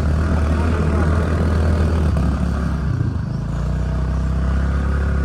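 A motor vehicle's engine running steadily while under way, with a low, even hum; its note briefly changes between two and three seconds in.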